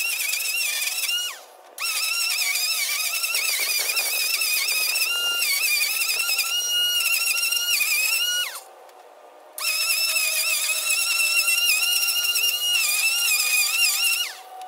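Corded electric string trimmer running in three bursts, its high motor whine wavering slightly as it cuts grass. Each run ends with the whine sliding down in pitch as the motor spins down: briefly about a second and a half in, again around eight and a half seconds in, and near the end.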